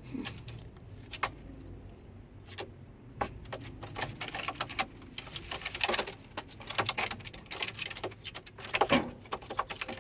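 Irregular sharp clicks, taps and knocks, some in quick clusters, with the busiest stretches about halfway through and near the end.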